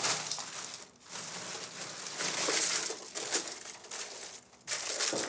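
Plastic bag and foil blister packs of pills crinkling as they are handled in a sink, in a run of separate rustles of varying length.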